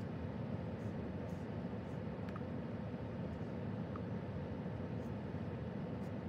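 Steady low rumble of a car, even and unchanging with no revving, with a few faint ticks.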